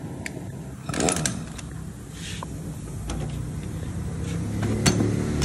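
Pneumatic impact wrench on the clutch centre nut of a Bajaj Pulsar NS200: a few metal clicks about a second in as the socket goes on, then the wrench running with a rising buzz that grows louder toward the end, spinning the nut off to take the clutch out.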